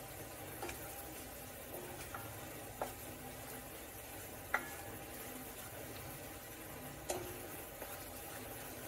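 Spoon stirring a thick onion and curry-spice mixture in a Le Creuset enamelled cast-iron Dutch oven, over a faint steady sizzle, with a few scattered light knocks of the spoon against the pot; the sharpest comes about halfway through.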